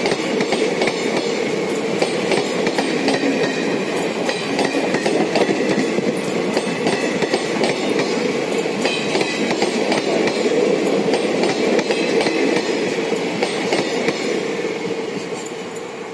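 Indian Railways passenger coaches rolling past close by: a steady rumble of wheels on rail with a rapid clickety-clack of wheels over rail joints. It fades near the end as the last coach goes by.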